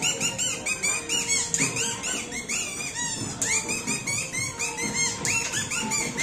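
Kathputli puppeteer's boli (mouth reed) squeaking out the puppets' voices: quick, high chirps that rise and fall several times a second without a break.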